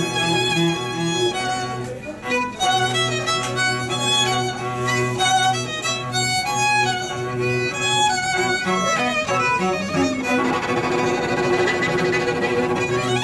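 Violin and cello duo playing: a bowed violin melody over a sustained cello bass line. From about ten seconds in the playing turns busier, with fast repeated bow strokes.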